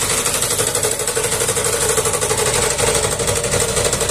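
Small carburetted petrol engine of a homemade generator, belt-driving an induction motor used as the alternator, running steadily with a rapid, even beat under a 1-kilowatt electric heater load.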